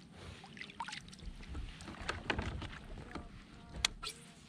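Scattered light clicks and knocks of fishing tackle and a kayak as a small gopher rockfish is reeled in and lifted aboard, with one sharper click near the end.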